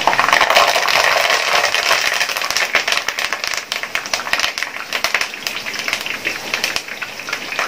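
Fresh curry leaves deep-frying in hot oil: a loud sizzle and crackle as they go in, settling after about three seconds into a thinner hiss with scattered sharp pops.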